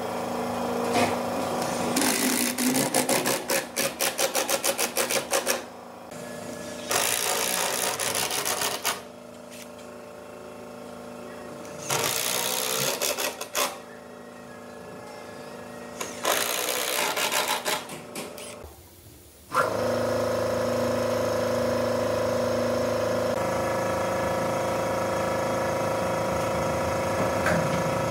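Woodworking power tools working in separate bursts. The first is a rapid run of strokes lasting a few seconds, and near the end a motor runs steadily for about eight seconds.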